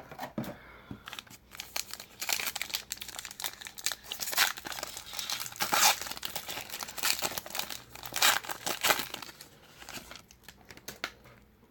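Wrapper of a trading-card pack crinkling and tearing as it is opened by hand, a dense run of crackles that eases off near the end.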